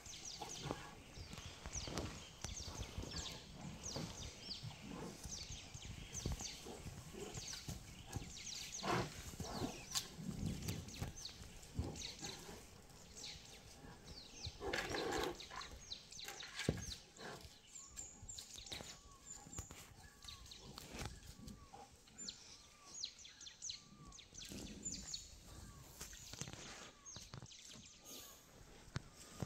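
Giant panda cubs scuffling and play-fighting on dry leaves and dirt: rustling and crackling with a few short animal calls, the loudest about halfway through. Small birds chirp repeatedly in the second half.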